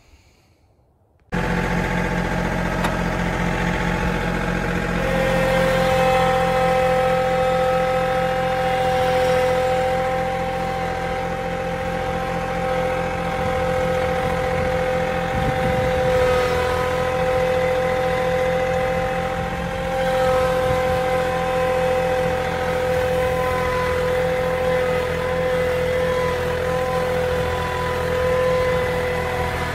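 Tractor engine running steadily as it tows a round hay bale on a rope, with a steady high whine over the engine note. It starts abruptly about a second in.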